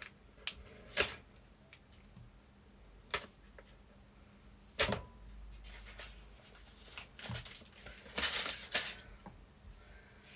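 A few separate knocks of a wooden spoon against a frying pan and kitchen things as butter is added to a pan of parsley butter, then a short scraping rustle of stirring about eight seconds in, over a faint low hum.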